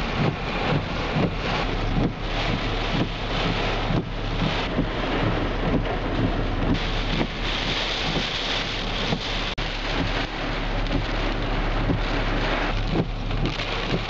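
Hurricane-force wind and heavy driving rain, the wind buffeting the microphone in irregular gusts. The sound cuts out for an instant about nine and a half seconds in.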